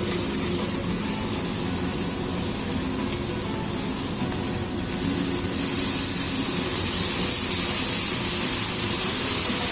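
Food sizzling in a hot wok at a restaurant cooking station, a steady hiss over a low hum, which gets louder about five and a half seconds in.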